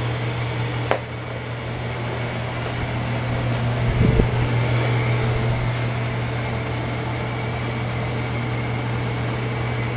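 ILIFE X5 robot vacuum running: a steady hum from its suction fan and motors, with a faint high whine above it. A short click about a second in and a dull thump about four seconds in.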